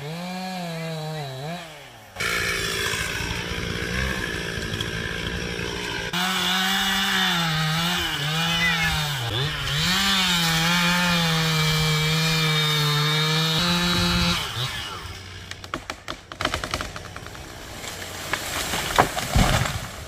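Two-stroke chainsaw running at high revs as it cuts into a tree limb, its pitch dipping and recovering as it bites into the wood. The saw stops about fourteen seconds in, leaving quieter scattered cracks and knocks.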